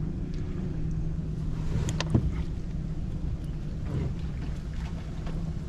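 Wind rumbling on the microphone over water slapping at a kayak, with a few sharp clicks and knocks from handling fishing tackle, the loudest about two seconds in.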